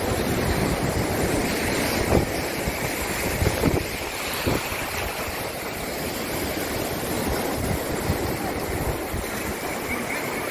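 Small waves washing and foaming around the shallows at the water's edge, with wind rumbling on the microphone. A few short bumps stand out between about two and five seconds in.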